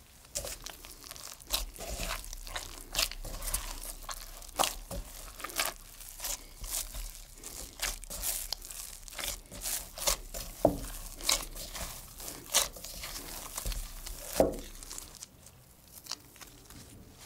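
Soft yeast dough being kneaded by gloved hands in a glass bowl: a busy, irregular run of sticky crackles and slaps, with a few sharper ones, stopping about fifteen seconds in.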